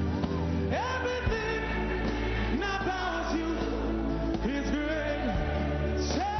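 Church worship team singing a worship song into microphones over band accompaniment, voices sliding up into long held notes.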